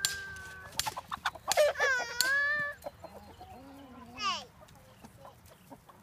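A flock of chickens calling: long drawn-out squawks, the loudest about two seconds in, and a short, higher call about four seconds in.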